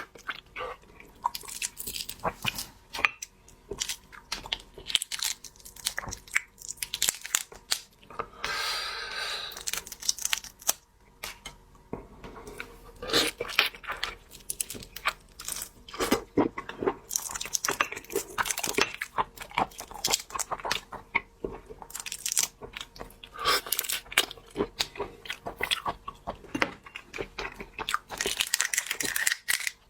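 Peony shrimp being eaten: shells crackling and tearing as they are pulled apart, with wet biting and chewing in many short, irregular crunches, and a longer rustling tear about nine seconds in.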